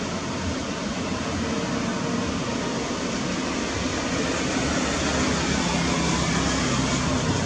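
Jet engines of a Boeing 787-8 at takeoff thrust on its takeoff run: a steady rushing noise with a low hum underneath, growing gradually louder.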